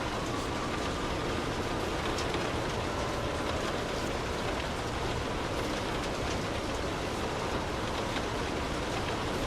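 Light rain falling on a car, heard from inside the cabin: a steady hiss with now and then a single drop ticking.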